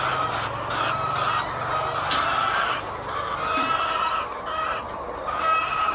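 A flock of layer hens clucking and calling, many voices overlapping in repeated calls, with a low hum under the first two seconds.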